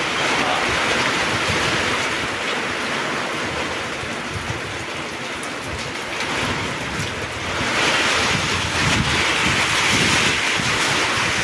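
Heavy rain pouring down, a steady hiss, with gusts of wind buffeting the microphone. The rain swells louder about two-thirds of the way through.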